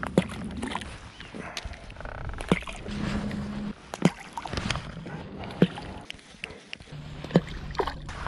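Water lapping and sloshing against a floating fishing raft, with about five sharp clicks and knocks scattered through and a faint low steady hum twice.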